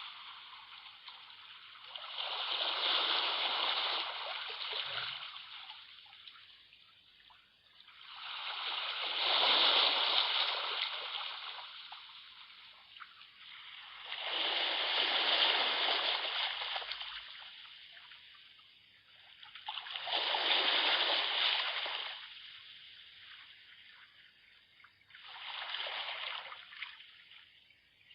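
Sea waves washing in and drawing back: five swells of surf about six seconds apart, each building and fading over a few seconds.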